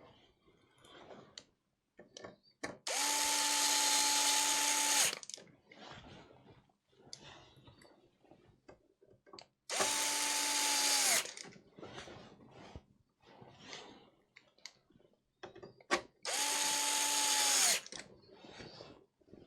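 A small electric power-tool motor runs in three short bursts of about two seconds each, holding a steady whine that winds down at the end of each burst. Faint clicks and handling noise come between the bursts.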